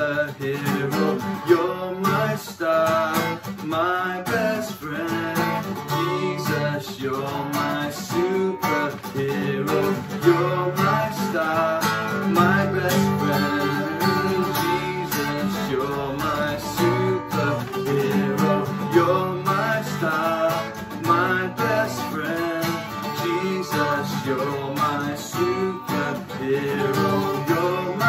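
Acoustic guitar strummed steadily in an upbeat song, with singing over it.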